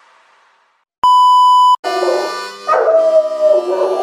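A single electronic beep of under a second, then a German Shepherd dog howling.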